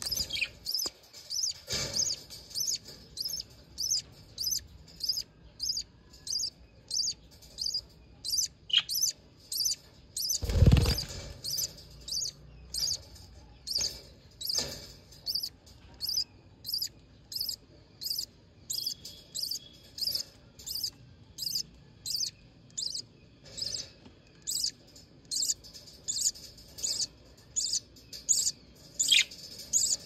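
Newly hatched budgerigar chicks peeping, the hunger begging calls of nestlings: short, high peeps repeated steadily a little under two a second. A single louder thump about ten and a half seconds in.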